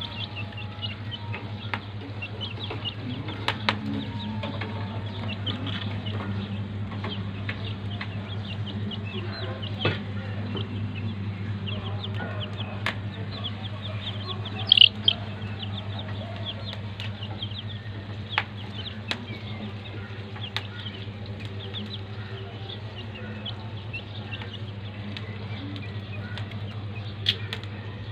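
Young chicks peeping over and over while foraging, with one louder, sharper call about halfway through. A steady low hum runs underneath.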